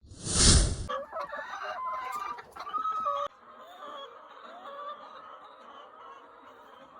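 Chickens clucking and calling as a flock. A loud rush of noise fills the first second, then a few clear calls until the sound cuts off abruptly about three seconds in, after which the flock's clucking goes on more softly.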